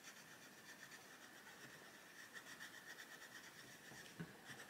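Faint scratching of a Staedtler Design Journey coloured pencil on colouring-book paper as it colours in, in quick soft strokes.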